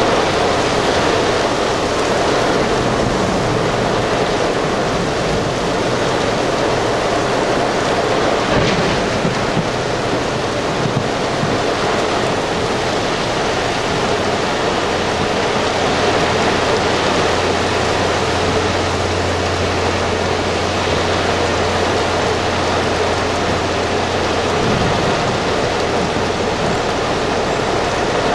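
Torrential rain pouring down, a dense steady hiss that fills everything, with a low steady hum through the middle stretch.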